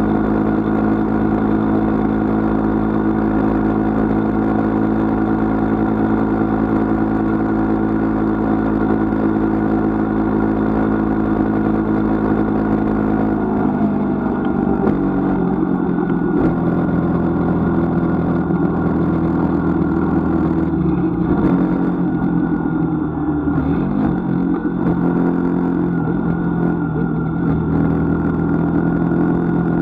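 Motorcycle engine running under way, a steady note at cruising speed that drops and wavers about halfway through as the bike slows and works through the bends.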